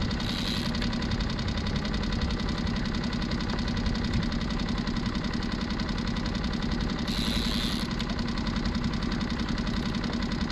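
Small outboard motor on a one-person skiff running steadily, with two brief hisses, one just after the start and one about seven seconds in.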